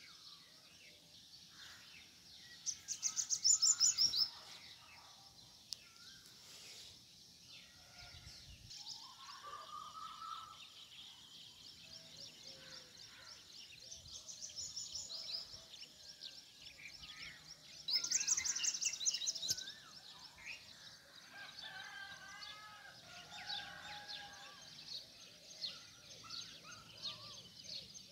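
Morning birdsong: several birds chirping and calling, with two loud bursts of rapid, high, repeated notes, one about three seconds in and one about two-thirds of the way through.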